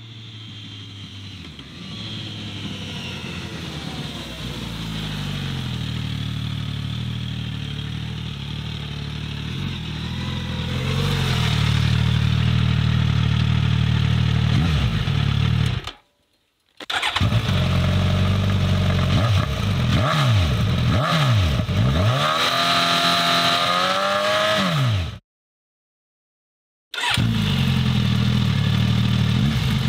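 Suzuki GSX-S1000 inline-four engine through a Bodis GPC-RSII slip-on exhaust. The motorcycle's engine note grows louder over the first ten seconds as it approaches and runs past. After a short silent cut it is revved repeatedly while standing, in quick throttle blips that rise and fall. After a second brief silence the revving resumes.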